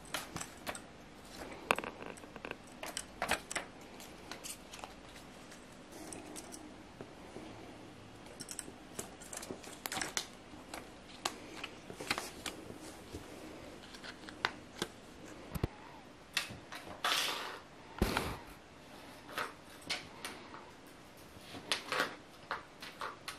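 Irregular light clicks and taps, with a couple of longer scuffs past the middle, as a kitten's paws and claws skitter on a wooden floor and bat at a plastic butterfly toy.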